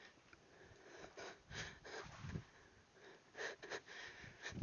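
A woman breathing hard in short, faint puffs while doing burpees, with a couple of soft low thumps.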